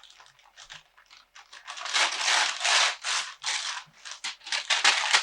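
Gift-wrapping paper being torn and crinkled off a present by a small child, in short irregular rips that grow louder and more frequent from about two seconds in.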